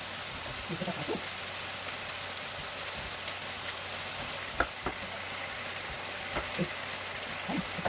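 Food sizzling in hot oil in a pan: a steady hiss with scattered crackles, and two sharper knocks a little past the middle.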